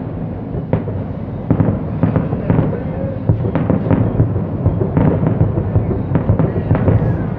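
Fireworks grand finale: aerial shells bursting in quick succession, with a sharp bang every half second or so over a continuous low rumble of overlapping bursts.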